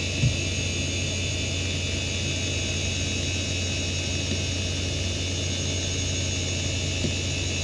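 Samsung SV0844A 5400 rpm IDE hard drive spinning during a benchmark's linear read test. It gives a steady low hum and a high whine from its spindle bearings. There are two brief low knocks, one just after the start and one near the end.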